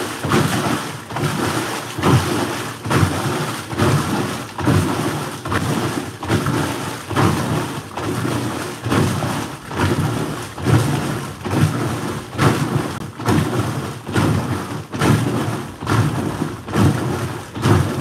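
GE washing machine in its wash cycle, water and clothes sloshing back and forth in a steady rhythm of about one stroke a second. The shift actuator has engaged, and the washer, which had been stuck on the 'sensing' light, is washing normally.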